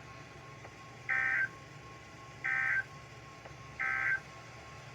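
Emergency Alert System end-of-message (EOM) signal from a NOAA Weather Radio broadcast: three short, identical bursts of warbling digital SAME data tones, about 1.3 seconds apart. The burst marks the close of the Required Weekly Test message.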